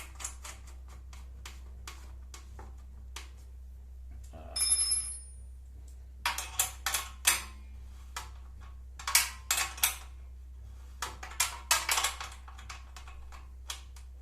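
Metal hardware clinking and knocking as a router table leg is bolted on with hex-head screws and washers. Scattered sharp clicks, a short ringing metallic rattle about five seconds in, then quick clusters of clinks.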